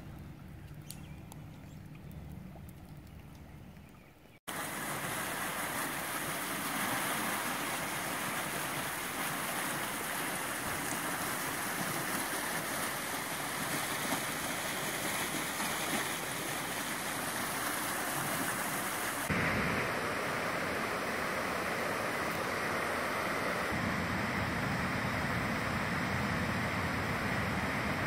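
Rushing floodwater from a swollen creek. It is quieter at first, then from about four seconds in it becomes a loud, steady rush with no rhythm, which changes character slightly at cuts about four and nineteen seconds in.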